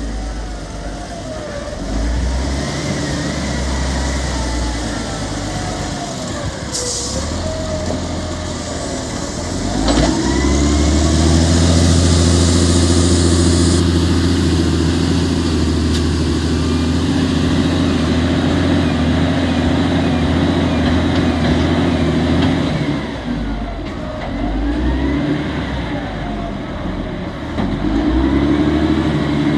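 A heavy vehicle engine running steadily, picking up and running louder from about ten seconds in, with a short hiss shortly before.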